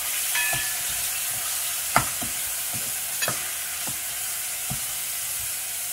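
Chicken pieces sizzling as they sauté in hot oil in a pan, a steady frying hiss. A few light clicks and knocks of utensils or the lid come through it, the sharpest about two seconds in.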